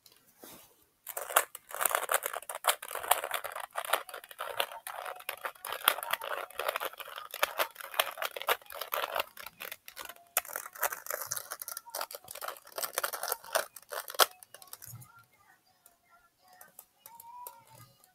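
Rubik's cube being turned rapidly by hand, a dense run of plastic clicks and clacks that stops about fourteen seconds in.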